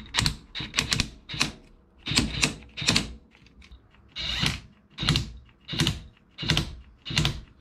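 Cordless impact wrench run in about a dozen short trigger bursts, roughly half a second to a second apart, snugging the castle nut on a tie rod end to seat the tie rod's tapered stud.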